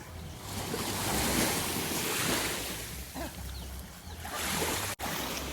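Sea waves washing and surging, with wind buffeting the microphone; the rush swells twice and cuts out for an instant near the end.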